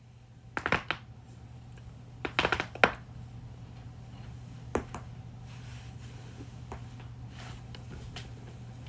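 Joints cracking during a chiropractic adjustment: a quick cluster of sharp pops about half a second in, a louder run of several pops around two and a half seconds in, and a single pop near five seconds, with a few faint clicks after.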